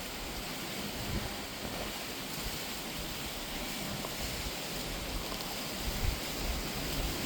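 Steady rushing noise with irregular low rumbling gusts, as from wind buffeting the microphone outdoors.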